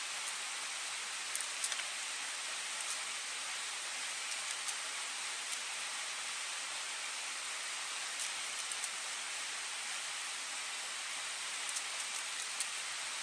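Steady rushing of a river, with faint, scattered clicks as a small knife cuts wild greens into a plastic bowl, in small clusters several times.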